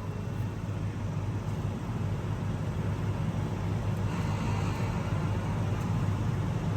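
New Holland combine harvester running steadily at working revs, a constant low drone.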